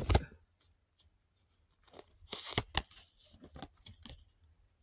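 Tarot cards being handled and drawn from the deck: a thump at the start, then a run of papery rustles, flicks and scrapes, busiest about two to four seconds in.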